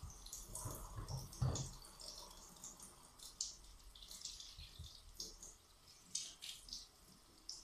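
Faint sounds of baking work at a kitchen counter: scattered brief scrapes and rustles, with one soft thump about a second and a half in.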